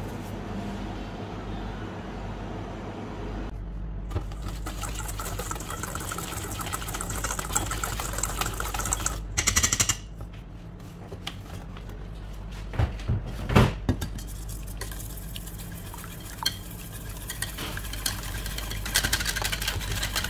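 Wire whisk scraping and clinking against stainless steel bowls while mixing pancake batter ingredients, with a few sharper knocks of metal on metal. A steady low hum runs underneath.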